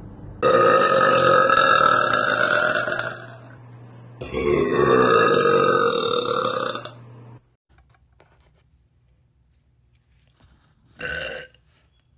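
A woman belching loudly twice, each burp a long drawn-out one of about three seconds, the second dropping in pitch as it starts.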